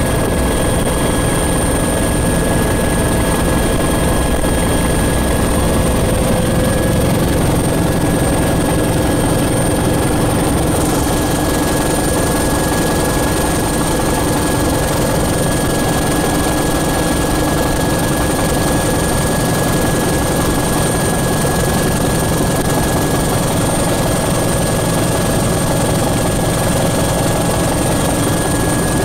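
Bell 412 helicopter in flight, heard from inside the cockpit: its main rotor and twin turboshaft engines make a steady, loud drone with constant high-pitched whines above it. The hiss grows a little brighter about eleven seconds in.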